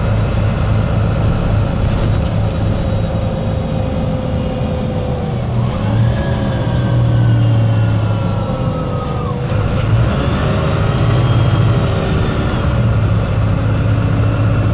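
MAN NL 263 city bus's D08 diesel engine idling with a steady low hum. In the middle a higher whine rises and then slowly falls, twice.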